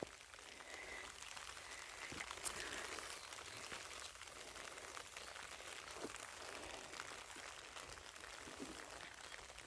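Faint steady rain, with scattered drops ticking.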